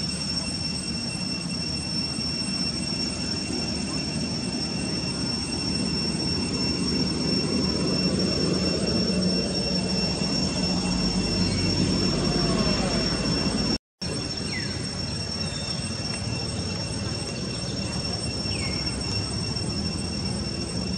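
Steady outdoor background noise: a constant high-pitched drone with a second, lower steady tone, over a low rumble that grows louder in the middle. The sound cuts out completely for an instant about two-thirds of the way through.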